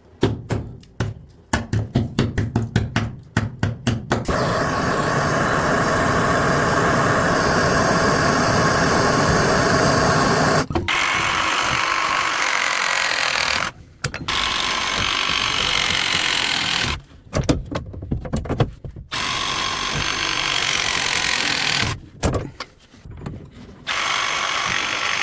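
Handheld power tool run in a rapid stutter of short trigger pulses for about the first four seconds, then in long steady runs of several seconds, with brief stops between them.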